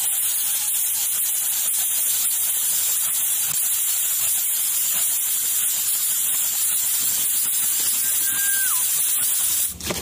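A steady, loud hiss, with a short falling whistle about eight and a half seconds in.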